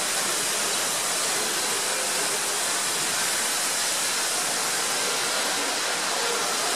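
High-pressure cleaner's water jet spraying onto the stone floor, a steady, unbroken hiss.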